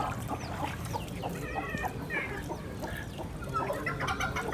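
Chickens clucking: a string of short clucks, with one longer wavering call about a second and a half in.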